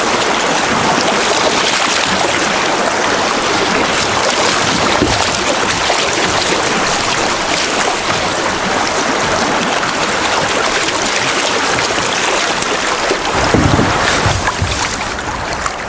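Rushing water of a small river rapid splashing around a moving canoe, a steady loud wash. A brief low buffeting near the end.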